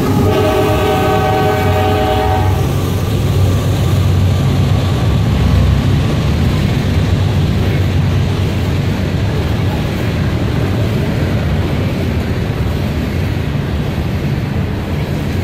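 CSX freight train passing close by: a diesel locomotive's air horn sounds a chord that cuts off about two and a half seconds in. Then comes the steady low rumble and rail clatter of the trailing locomotives and long open-top freight cars rolling past.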